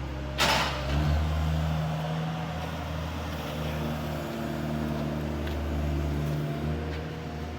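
An engine running steadily with a low hum, getting louder about a second in. Just before that, a short sharp hiss.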